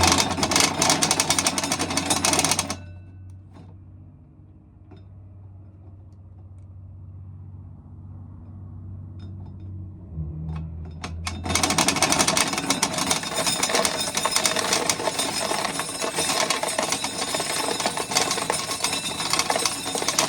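Corn sheller running with a dense rattling grind as an ear of corn goes through it; it stops about three seconds in, leaving only a faint hum and a few ticks, and starts rattling again about eleven and a half seconds in.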